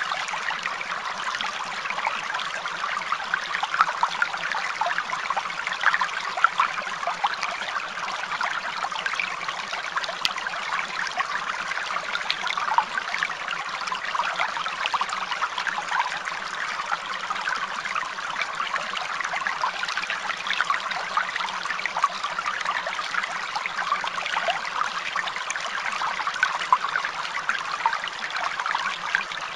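Steady trickling of running water, like a stream, continuing evenly throughout.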